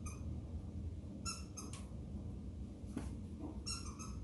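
Squeaky dog toy being squeezed, giving quick double squeaks three times, about a second and a half apart.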